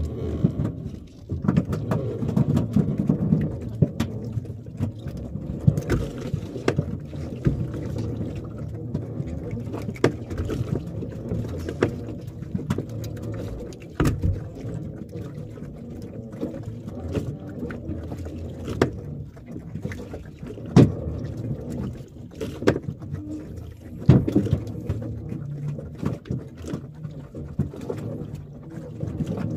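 Handline being hauled hand over hand aboard a small wooden fishing boat: scattered knocks and taps against the boat over a steady low rumble.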